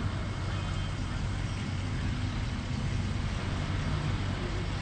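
A car engine idling steadily, a low even hum.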